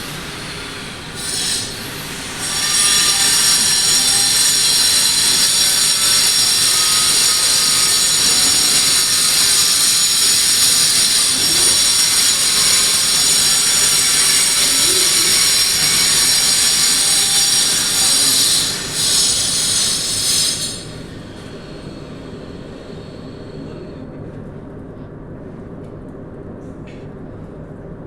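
A loud, steady, high-pitched screech made of several piercing tones. It comes in briefly about a second and a half in, holds from about two and a half seconds in, and cuts off suddenly about twenty seconds in.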